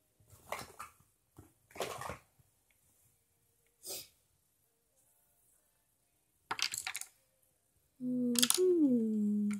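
Makeup brushes and compacts clattering and rustling as someone rummages for a brush, in a few short knocks and rattles. Near the end a person's voice hums a long "mmm" that drops in pitch, the loudest sound.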